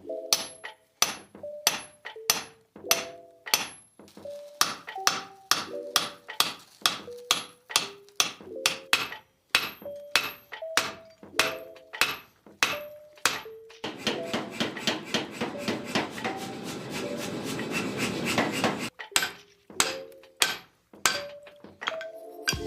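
Hand hammer striking steel on an anvil, about two blows a second, each blow leaving a short metallic ring. For about five seconds past the middle the separate blows give way to a dense, continuous rattling noise, after which the hammer blows resume.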